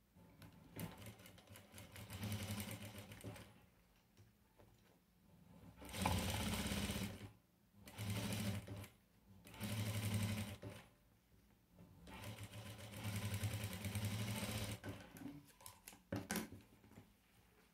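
Electric sewing machine stitching fabric in about five short runs of one to three seconds each, stopping and starting between them, with a sharp click near the end.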